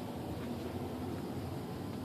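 Low, steady background hiss of room tone, with no distinct event.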